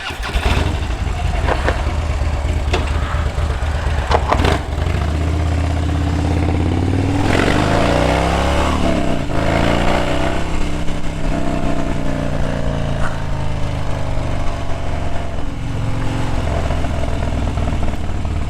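Modified 2015 Harley-Davidson Street Bob's V-twin engine running after being started, with a few sharp clicks in the first five seconds, then pulling away with the revs rising and falling through the gear changes, and settling into a steady ride.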